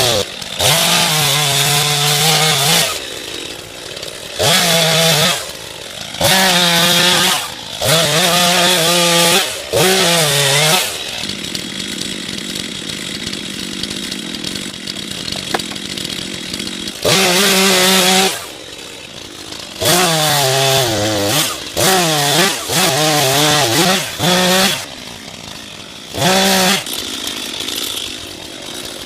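Stihl chainsaw cutting through the felled tree's wood: the engine revs up to full throttle in repeated bursts of a second or two, its pitch sagging as the chain bites, and drops back to a lower steady idle between cuts, with one long idle stretch near the middle.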